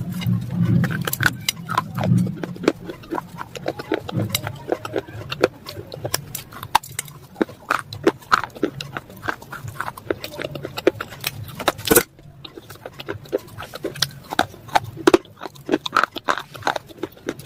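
Close-miked crunching and chewing of crushed white slate pencil: a dense run of sharp, irregular cracks and crackles, with one loud snap about twelve seconds in.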